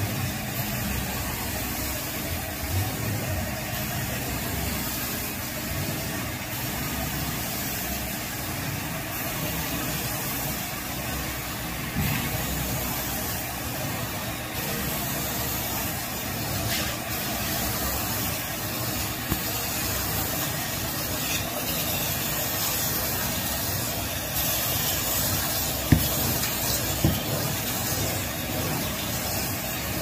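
Carpet extractor's vacuum and spray running steadily as the steel extraction wand is drawn across the carpet, a constant hiss. A couple of sharp knocks come near the end.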